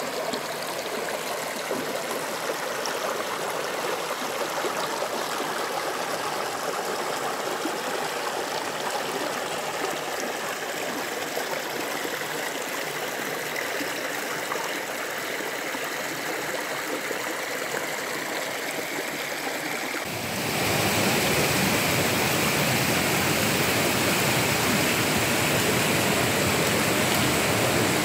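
Shallow rocky stream flowing, a steady rush of water running over stones. About twenty seconds in, the rush turns suddenly louder and fuller.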